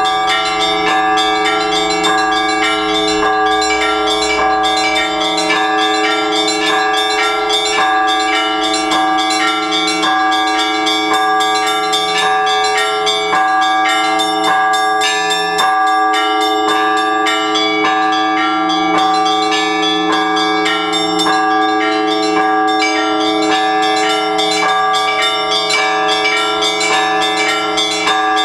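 Orthodox church bells rung together in a continuous peal: quick, repeated strikes of smaller bells over the long ringing tones of larger ones.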